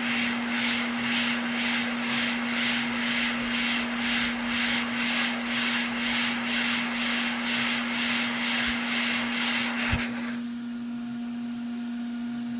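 Small electric blower motor running with a steady hum and a hiss that pulses about twice a second. It is switched off with a click about ten seconds in, leaving a fainter hiss.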